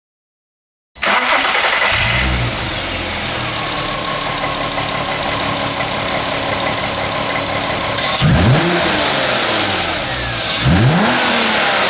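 2005 Audi TT 3.2 L VR6 engine running at a steady idle, then revved twice in quick blips, its pitch rising and falling each time, in the last few seconds.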